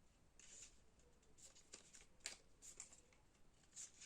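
Faint handling of paper and card album contents (photo cards, sticker sheets, album pages): scattered light rustles and soft taps, the clearest a little past two seconds in.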